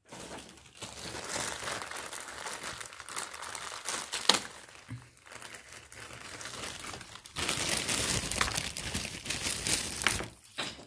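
Crinkling and rustling of packaging as someone rummages through craft supplies for bottle-brush fir trees, in two stretches, the second louder, with a sharp tap about four seconds in.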